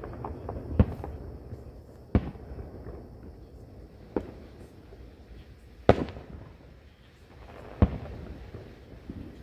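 Aerial firework shells bursting: five sharp bangs a second or two apart, each followed by a low rolling rumble, with a few small crackles at the start.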